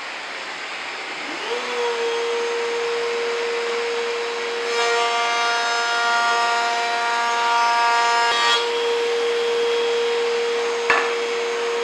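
Router mounted in a router table spinning up with a rising whine about a second in, then running steadily, with a dust extractor running behind it. For about four seconds in the middle, a wooden board is fed past the bit and the sound thickens as the router cuts. A sharp click comes near the end.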